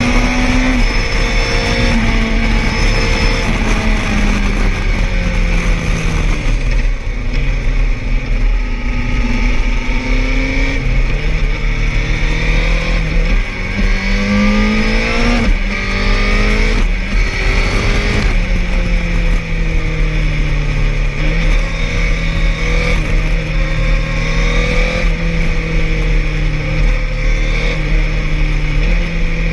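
Suzuki GSX-R1000R's inline-four engine through an Akrapovic slip-on exhaust while riding, the pitch rising and falling with throttle and gear changes, then holding fairly steady through the last third. Steady wind noise runs underneath.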